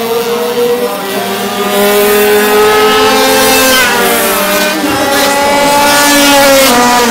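Small racing motorcycles running at high revs as they race past. Several engine notes overlap, and one drops in pitch as it goes by about four seconds in.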